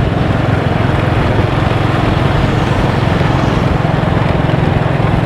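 Motorbike under way: a steady engine drone mixed with wind rushing over the microphone.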